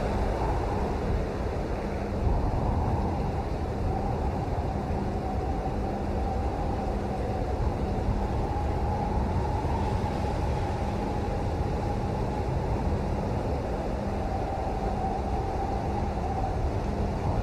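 Steady rain: a dense, even noise heavy in low rumble, with a faint wavering tone running through it.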